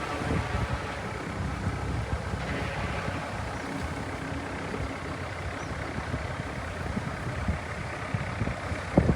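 A small boat's engine running steadily under a dense low rumble of wind and water noise, with a sharp thump about nine seconds in.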